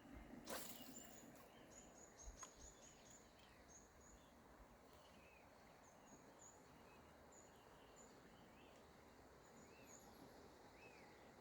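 Faint birdsong over a low background hiss: many short, high chirps and a few brief arched calls. There is a sharp click about half a second in and a smaller one a couple of seconds later.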